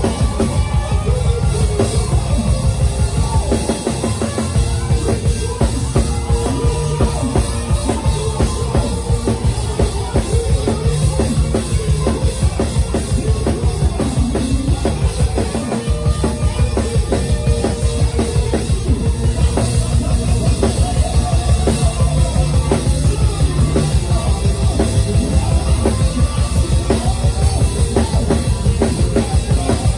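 Live gospel praise band playing a groove, the drum kit keeping a steady beat under bass and other instruments.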